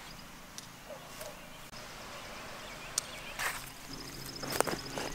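Quiet outdoor background. Near the end there is rustling and a sharp knock as a rock is handled and set down on lightweight garden bug netting to weigh it down.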